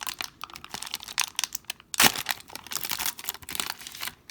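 Crinkling and tearing of a card pack's wrapper being opened and handled, a dense run of sharp crackles with the loudest about two seconds in.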